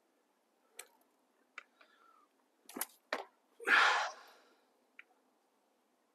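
Scattered sharp clicks and snaps of dry brush and leaf litter, with one louder rustle lasting under a second about four seconds in.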